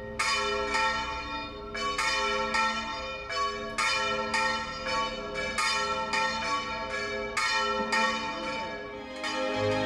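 Church tower bells pealing in a quick, uneven series of strikes, about two a second, each strike left to ring on over the next.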